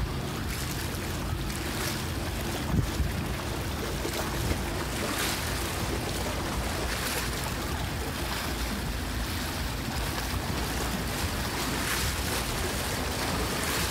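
Sea waves washing against a rocky breakwater, with wind rumbling on the microphone.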